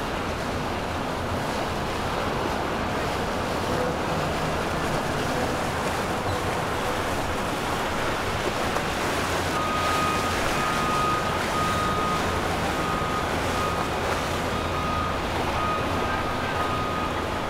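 Twin Mercury 300 outboard motors running steadily as a Chris-Craft center-console cruises by, mixed with the wash of its wake and wind on the microphone.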